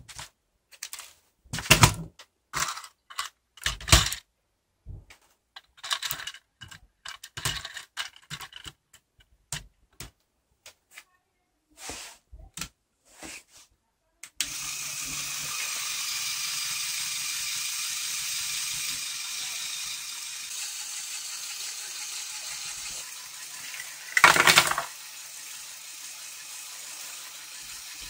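Plastic LEGO Technic parts clicking and knocking as they are handled. Then, about halfway through, the truck's Power Functions electric motor starts and whirs steadily as it drives the linear actuators that tip the container, with a brief loud clatter near the end.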